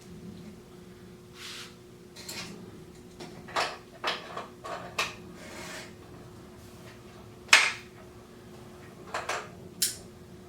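Hand tools and metal parts of a lawn edger's wheel assembly clinking and knocking against each other in irregular taps, with one sharper hit about two-thirds of the way through.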